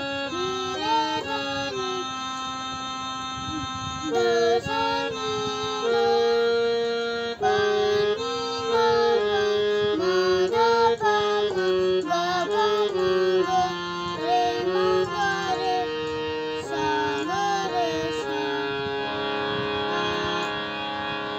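Electronic keyboard set to a harmonium voice, playing a simple melody one note at a time, with a child singing along with the notes.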